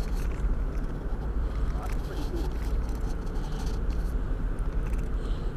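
Camera handling noise: bare skin rubbing and brushing against the camera housing gives soft, irregular rustling over a steady low rumble.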